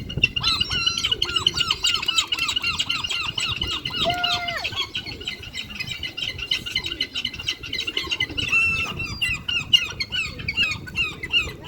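A flock of seagulls calling over one another at a feeding, many repeated high calls overlapping into a continuous chorus.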